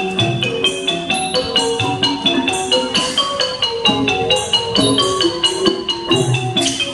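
Thai classical piphat ensemble playing dance accompaniment, led by xylophone-like mallet instruments in fast, continuous running notes over low drum strokes.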